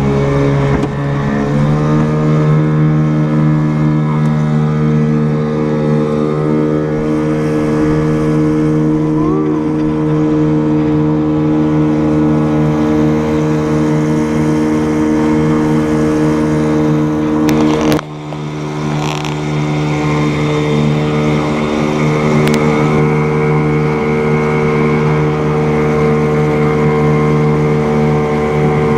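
A vehicle engine running hard at high, steady revs. The revs climb over the first couple of seconds, then hold. About eighteen seconds in there is a sharp knock and the revs drop briefly before picking up again.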